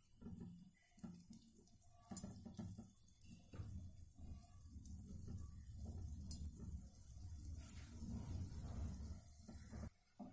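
Gulab jamun dough balls frying in hot oil in a kadhai kept at medium heat: a faint, irregular sizzle and bubbling, with a few soft ticks.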